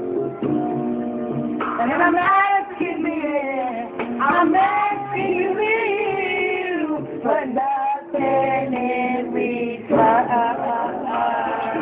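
Female voices singing along with musical accompaniment, the melody holding long notes over steady low backing tones.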